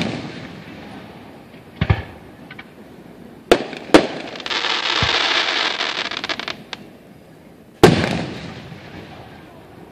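Aerial firework shells bursting overhead: a boom about two seconds in, two sharp bangs near the middle followed by a couple of seconds of dense crackling, and a loud boom near the end that rumbles away.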